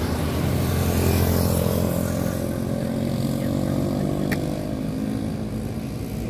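Motorcycle passing close at speed, its engine note sliding down in pitch as it pulls away and fades.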